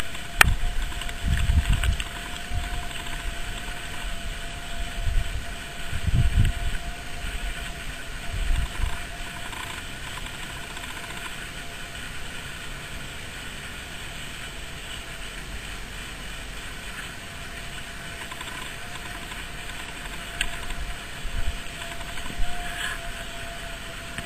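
Outdoor ambience: a steady hiss with a faint constant whine. Low rumbles hit the microphone a few times in the first nine seconds.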